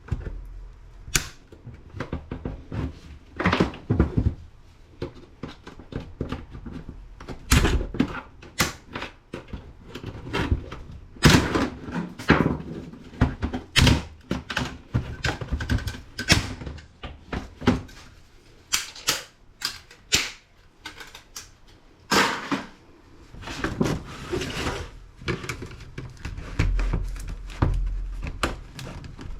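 Irregular clicks, snaps and knocks of an old Dell laptop's plastic casing being pried and pulled apart by hand, with sharp cracks scattered throughout.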